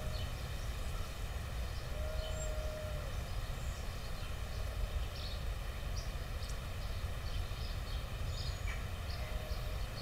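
Outdoor ambience: a steady low rumble, with faint scattered high chirps and a brief faint held tone about two seconds in and again near the end.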